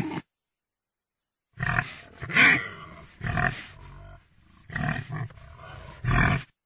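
Pig grunting: about five loud grunts, roughly a second apart, with quieter snuffling noise between them. A short loud sound is cut off right at the start.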